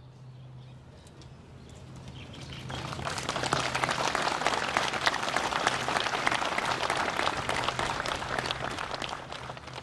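Audience applauding, the clapping swelling about three seconds in and tapering off near the end.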